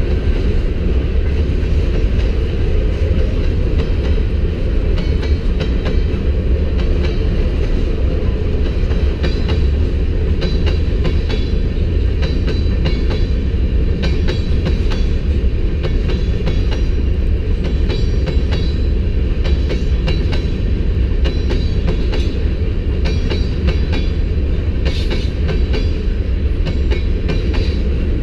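Freight train rolling past close by: a steady heavy rumble with a constant run of wheel clicks and clatter over the rails.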